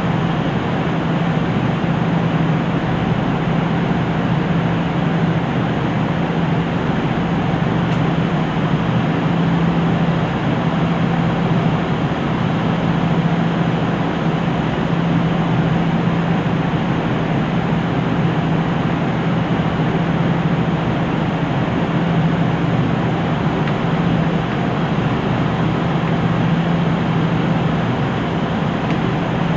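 KiHa 75 diesel railcar's engines idling while the train stands at a station: a steady drone with a constant low hum that swells slightly now and then.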